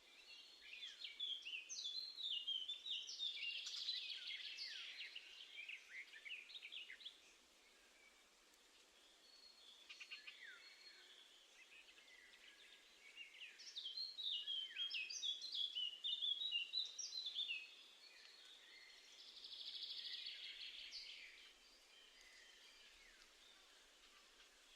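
Wild songbirds singing: two long stretches of quick, twittering, up-and-down song notes, one starting about a second in and another in the middle, with quieter background between them.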